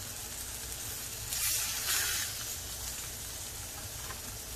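Coated tilapia fillets sizzling in oil in a frying pan, with a louder burst of sizzling from about one and a half to two and a half seconds in.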